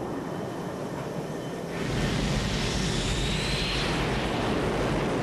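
Twin jet engines of an A-6 Intruder running at high power on a carrier deck, ready for catapult launch. The roar grows louder about two seconds in, with a thin high whine over it.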